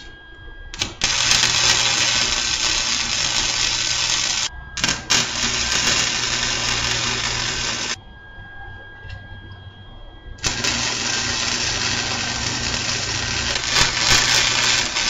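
Wire-feed welder arc crackling and hissing steadily as it lays a fillet weld along the corner joint of two plates, in short sections to limit warping. One run of about seven seconds with a brief break midway, a pause of about two seconds, then a second run starting about ten seconds in.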